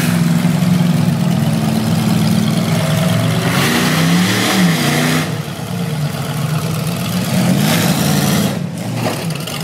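Monster truck engine running loudly and revving in repeated bursts as the truck drives up onto a row of junked cars.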